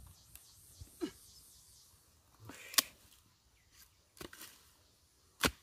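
Hoe blade chopping into soil and the roots of a firmly rooted shrub: four separate strikes a second or more apart, the ones near the middle and at the end the loudest.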